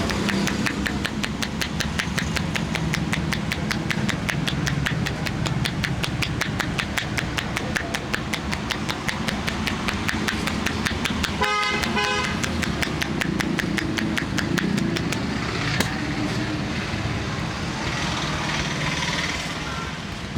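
Rapid, even run of hand slaps from a barber's percussive head-and-back massage, over steady street traffic noise. A vehicle horn sounds briefly about halfway through.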